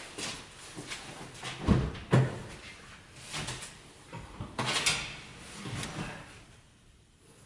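Irregular knocks and clunks, the two loudest close together about two seconds in, with more scattered ones after.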